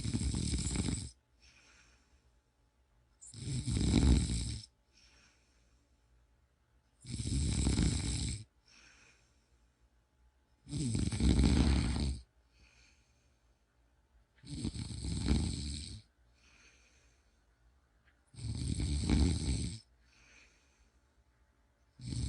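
Steady, regular snoring: six loud snores about four seconds apart, each with a faint breath between them.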